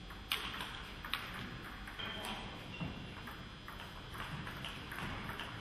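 Table tennis ball being struck by bats and bouncing on the table during play: a handful of short, sharp clicks at irregular spacing, the clearest about a third of a second and just over a second in, over a steady sports-hall background.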